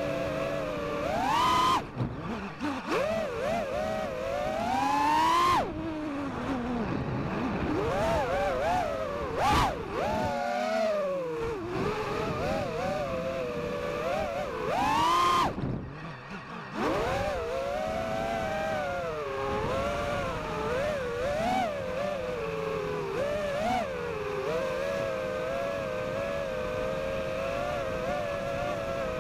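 FPV quadcopter's motors and propellers whining, heard from the onboard camera: a steady hum whose pitch climbs steeply with each throttle punch and cuts off abruptly at the top of a power loop, three times (about two, six and sixteen seconds in), with smaller rises and dips in between.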